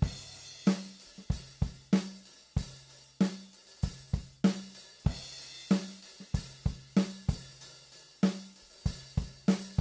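Recorded acoustic drum kit playing back in a steady beat at about 95 beats per minute: kick drum, snare and hi-hat, the snare cracking about every 1.3 seconds. These are the raw drum tracks being roughly balanced in a mix, with the kick turned up.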